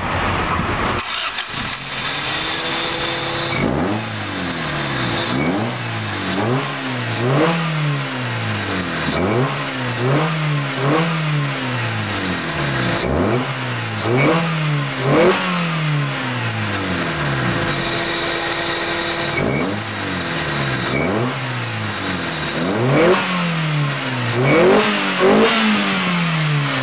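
Honda D15B VTEC 1.5-litre four-cylinder engine with a high-flow stainless air intake and aftermarket resonator exhaust, idling and being free-revved over and over: more than a dozen sharp throttle blips, the revs climbing quickly and falling back to idle, some in quick pairs.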